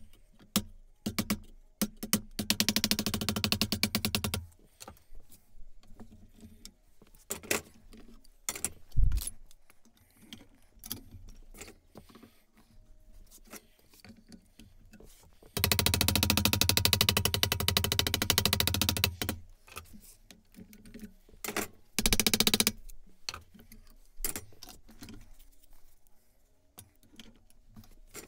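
Sounds of hand-forming an aluminium nose-rib flange over a wooden form block clamped in a vise. There are two stretches of rapid tapping, one about two seconds in and one from about fifteen to nineteen seconds in, and separate single knocks between them.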